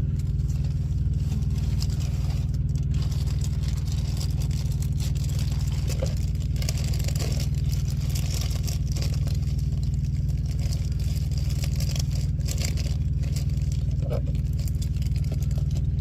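Steady low drone of an idling truck engine, unchanging throughout, with light rustling a couple of times.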